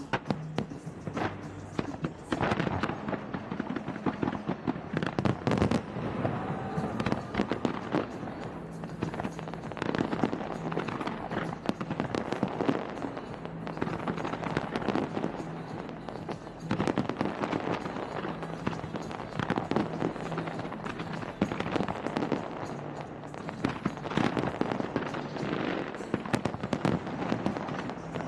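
A large fireworks display bursting and crackling, with dense rapid bangs and crackles that keep up throughout. Music from the show's soundtrack plays underneath with steady low notes.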